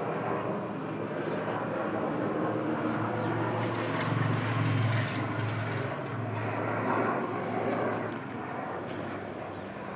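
Helicopter flying low overhead: a steady engine and rotor drone that is loudest about four to five seconds in and fades toward the end as it moves away.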